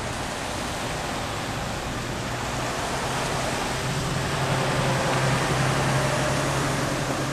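Steady hiss of falling rain, with a steady low hum underneath; it swells a little toward the middle.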